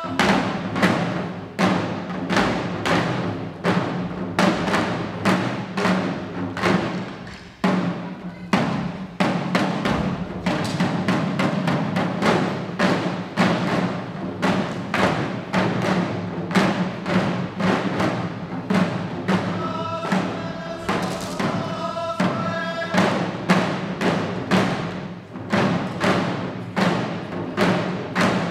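Shishi odori deer-dance drums: many waist-hung taiko beaten together in a driving, steady rhythm, with stronger accents about once a second.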